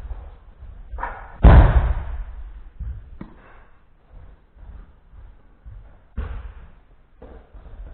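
A person thrown onto tatami mats, landing with a loud slap about one and a half seconds in that echoes through the hall; a second, lighter landing on the mats about six seconds in, with scuffing of feet and gis between.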